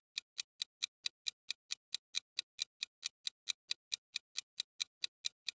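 Quiz countdown-timer sound effect: a rapid, even clock ticking, about four to five ticks a second, marking the guessing time.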